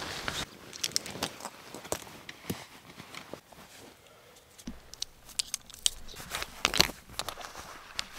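Tent fabric and camping gear rustling and crinkling as they are handled, with irregular sharp clicks and crackles, thickest about seven seconds in.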